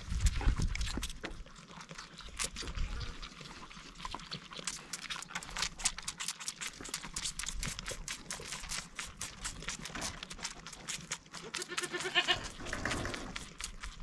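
Goat kids suckling hard on milk-bottle teats, a quick run of small wet sucking clicks. A kid bleats once near the end.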